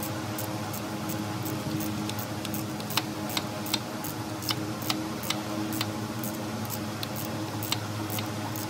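Sharp clicks and taps, irregular, a few a second, over a steady low hum.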